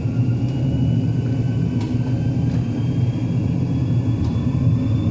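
Simulated A330 cockpit engine sound: a steady low jet rumble with a faint high whine slowly rising in pitch, and a few light clicks.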